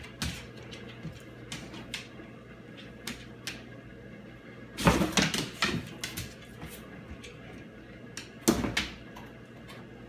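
Cardboard box knocking and scraping as a cat moves about inside it: scattered light taps, with two louder clusters of bumps about five seconds in and again near the end.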